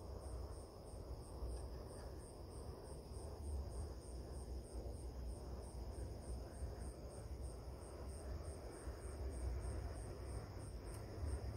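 Night insects chirping: one in a steady high pulse of about three to four chirps a second over a continuous high trill from others, with a low rumble underneath.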